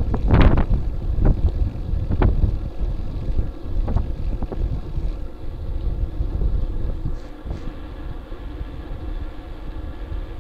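Wind buffeting the microphone of a bicycle-mounted camera while riding on city pavement, with steady road rumble. Several sharp knocks from bumps in the road come in the first four seconds, and the noise drops somewhat over the last few seconds.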